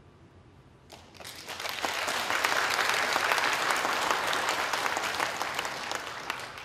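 Snooker audience applauding a century break. The clapping starts about a second in, swells quickly, holds, and eases off near the end.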